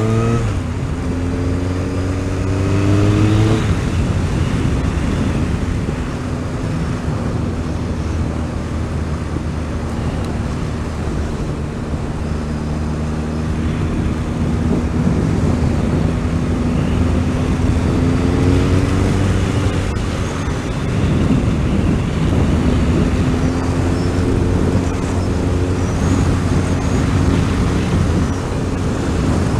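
Motorcycle engine under way: its pitch climbs as it accelerates, drops at a gear change a few seconds in, holds steady while cruising, then climbs twice more later on. A steady rush of wind runs under it.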